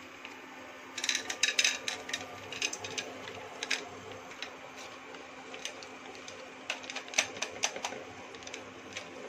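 Dried popcorn kernels poured from a packet into a frying pan, clattering and ticking against the metal. The clicks come thick for a few seconds about a second in, then thin out to scattered ticks.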